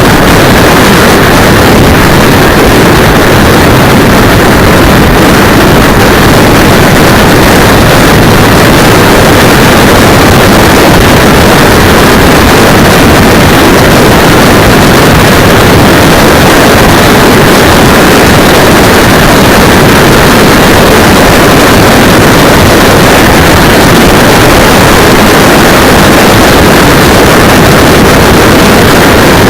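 Motorcycle ride heard through a cheap 808 keychain camera's microphone strapped to the brake cylinder: a constant, overloaded rush of wind and road noise, steady and distorted at full level.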